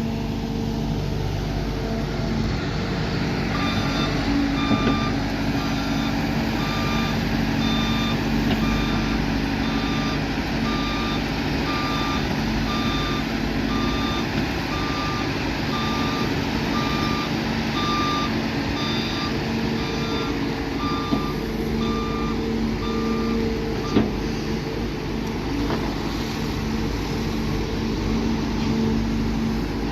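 Heavy diesel construction vehicle running steadily while its reversing alarm beeps about once a second; the beeping starts a few seconds in and stops about three-quarters of the way through.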